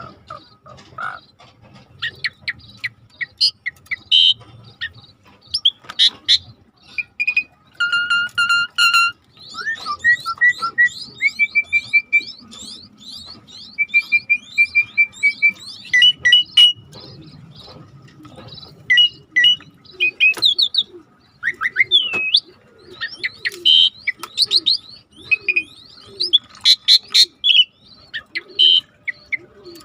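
Asian pied starling (jalak suren) singing a long, varied song of clear whistles, quick sweeping notes, chattering clicks and trills, the kind of recording played to provoke a silent bird into song.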